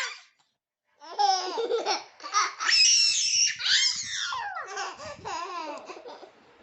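A baby laughing hard in a string of high-pitched bursts, starting about a second in after a short pause.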